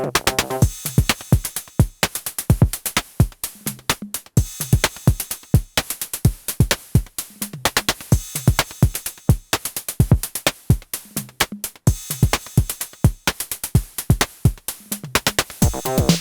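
Electronic techno drum-machine pattern at 128 bpm: steady kick and percussion hits with bright hi-hat ticks. The pitched synth line drops away, leaving mostly the drums until it comes back at the very end.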